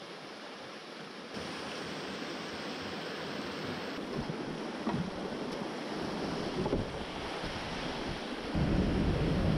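Rushing creek water through small whitewater rapids, a steady hiss that grows louder in steps, with a couple of short knocks about five and seven seconds in. Near the end a heavy low rumble of wind and water buffeting the microphone comes in on top.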